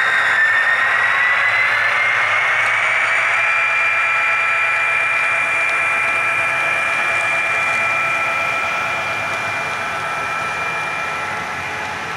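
Model diesel-outline train running past on the track: a whine that rises in pitch over the first few seconds and then holds steady, over the hiss and rumble of wheels rolling on the rails.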